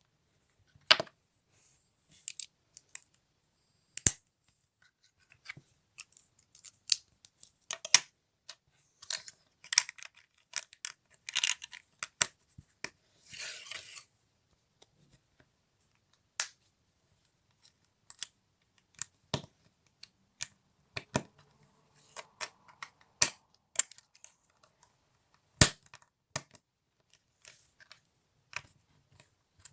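Small plastic toy building bricks being handled and pressed together: scattered sharp clicks and taps, with a brief rustle of pieces being moved about halfway through.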